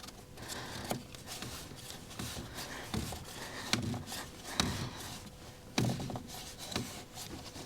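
Scattered light clicks, taps and rubbing of hands handling things, with a few short low thumps.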